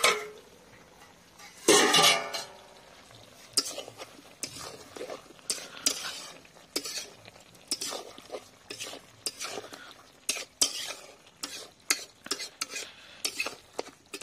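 A steel spatula stirs and scrapes chicken and potato curry in a metal kadai: a run of short scrapes about once or twice a second, with a light sizzle. About two seconds in there is one loud metallic clang with a brief ring as the steel lid comes off.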